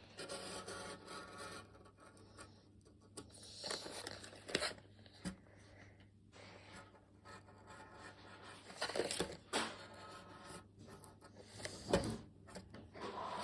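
Intermittent scraping and rubbing of a hand tool cutting into toy packaging, with a few sharper, louder scrapes.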